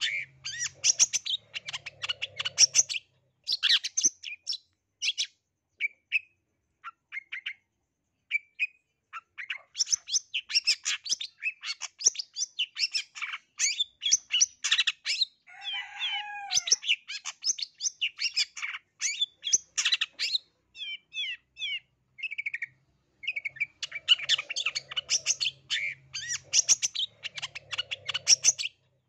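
Long-tailed shrike (cendet), black-headed 'blangkon' form, singing a fast, chattering song packed with mimicked phrases of other birds. It sings in dense runs of quick high notes, thinning to scattered single notes a few seconds in before picking up again.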